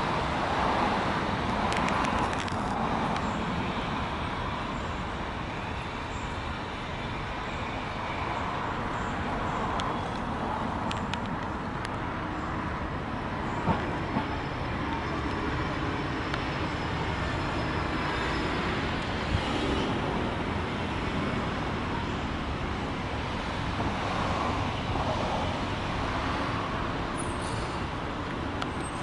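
Steady hum of city road traffic, with a few faint clicks.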